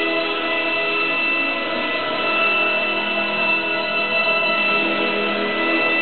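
Music with long held chords and no clear beat.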